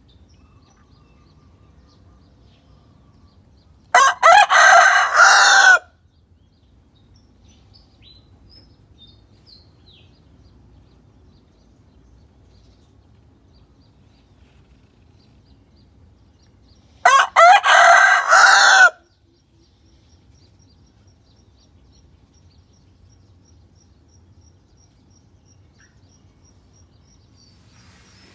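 A chicken crowing twice, each crow a loud call of about two seconds, the second about thirteen seconds after the first.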